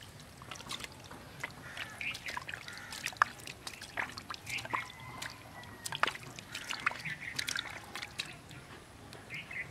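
Hands sloshing and squelching in a shallow hole of muddy water, with irregular small splashes and drips as a fish is lifted out and the hands dig back into the mud.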